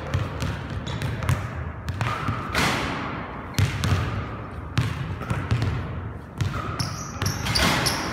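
Basketball bouncing on a hardwood gym floor: irregular sharp thuds, each ringing on in the echo of the gym, with a few short high squeaks near the end.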